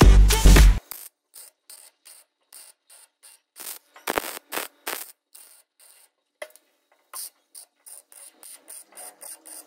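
Background music cuts off under a second in; then an electric arc welder crackles in short repeated bursts, about three a second, tack-welding a bracket onto a steel tube frame, with a louder burst about four seconds in.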